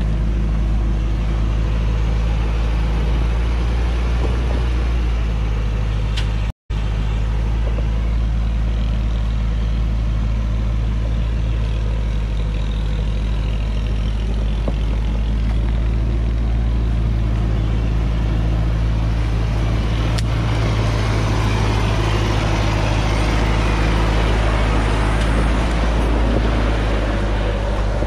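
Diesel engine of a Hoa Mai truck loaded with acacia logs running steadily as it works along a dirt hillside track. The sound cuts out for a split second about six and a half seconds in, and grows a little harsher and louder near the end.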